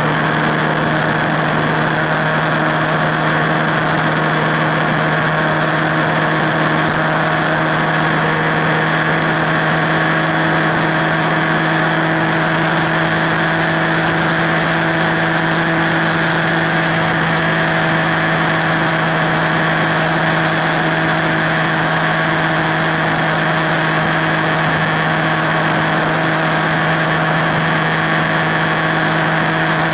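Motorcycle engine running at a steady cruising speed on the highway, a constant even drone under steady wind and road noise.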